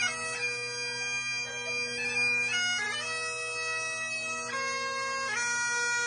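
Great Highland bagpipe playing, held chanter notes that change every second or so over its steady, unbroken drones.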